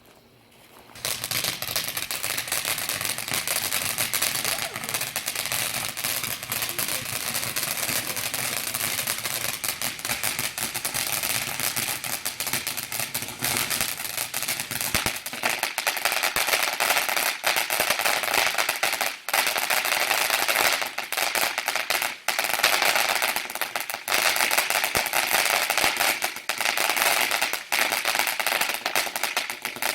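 Small consumer fountain firework catching about a second in, then spraying with a hiss and dense, rapid crackling.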